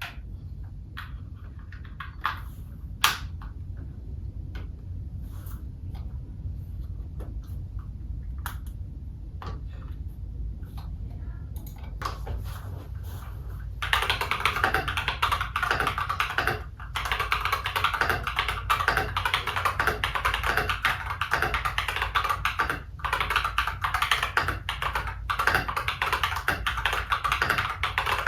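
Irok FE87 mechanical keyboard with AliExpress Holy Panda tactile switches being typed on: scattered single keystrokes at first, then fast continuous typing from about halfway through, broken by two short pauses.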